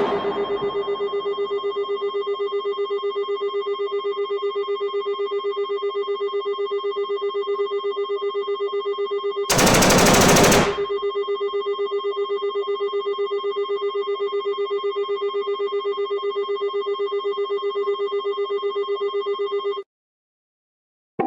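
Emergency alert alarm: one steady, fast-pulsing electronic tone with overtones. About ten seconds in, a loud burst of gunfire lasting about a second cuts across it. The alarm cuts off abruptly a second and a half before the end.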